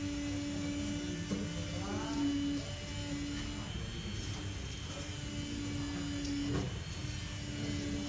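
Small handheld electric grinding pen running with a steady low hum that breaks off and comes back several times as its tip grinds at an iPhone 7 home button assembly. A brief rising squeak comes about two seconds in.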